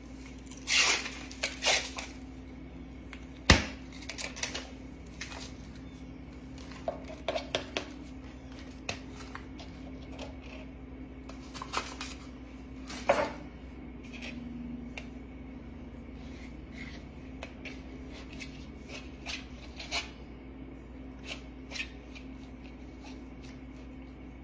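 Food-prep handling sounds as a tube of refrigerated cinnamon-roll dough is opened and the dough is unrolled, cut and pressed on a plastic cutting board: scattered taps, rustles and clicks, the sharpest a snap about three and a half seconds in. A steady low hum runs underneath.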